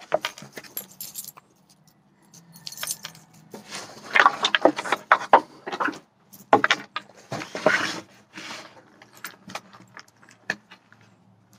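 Metallic jingling, clicking and clattering of keys and pistol gear being handled: keys on a lanyard and a 1911 pistol and magazines being moved about in a hard plastic gun case. The sound comes in bursts, busiest about four to six seconds in and again near eight seconds, with scattered single clicks between.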